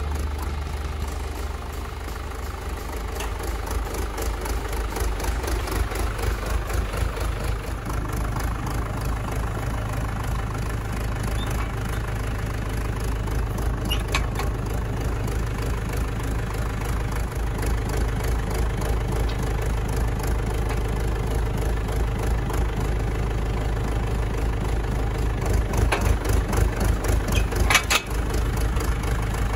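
John Deere loader tractor's diesel engine idling steadily, with a few short metal clanks from about halfway and near the end as the bale spear is fitted to the loader's quick-attach.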